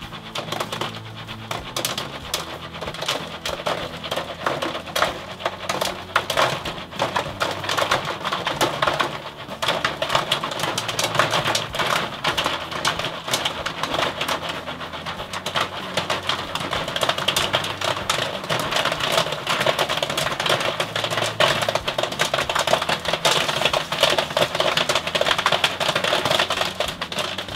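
Jiffy Pop popcorn popping inside its foil pan as it is shaken over a gas stove burner: a dense, rapid crackle of kernels bursting, growing busier after the first several seconds.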